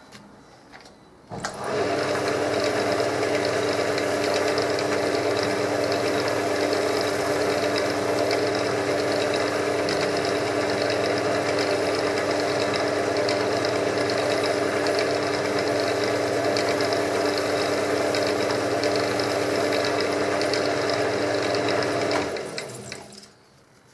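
Electric wood lathe running with a steady motor hum and whine, starting about a second in and fading out near the end as it is switched off and slows.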